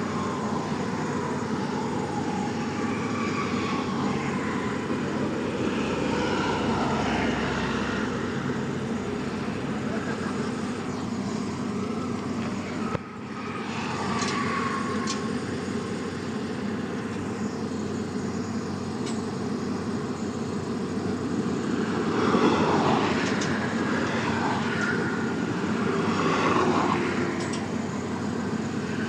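Heavy diesel engine running steadily, with wavering whines rising and falling over it. There is a brief break about 13 seconds in, and the sound swells louder twice near the end.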